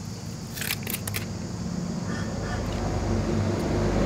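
A motor vehicle's engine running with a low, steady hum that grows louder throughout. About half a second to a second in come a few short crackles from the oil filter's stiff paper pleats being handled.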